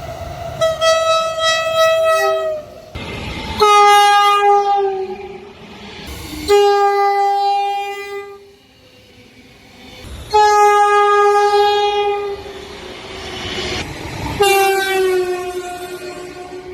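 Five locomotive air horn blasts, one after another, each starting abruptly. Each sounds several tones together and mostly slides down in pitch as the train passes: the Doppler effect.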